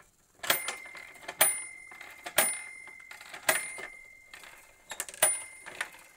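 Small bell on a vintage Fisher-Price parking garage toy struck about five times, roughly once a second. Each strike leaves a clear, high ringing tone that lingers.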